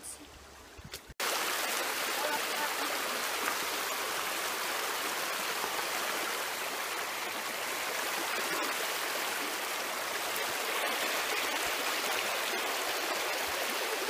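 Shallow, rocky creek running over stones: a steady rush of water that comes in abruptly about a second in.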